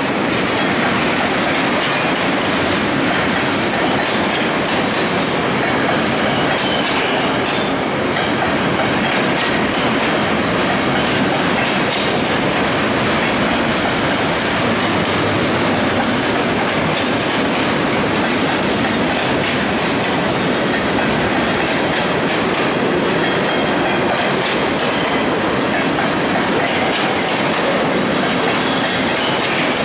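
Freight train of steel gondola cars rolling past close by: a steady, unbroken rumble of steel wheels on rail, with the clack of wheels over rail joints and occasional faint wheel squeal.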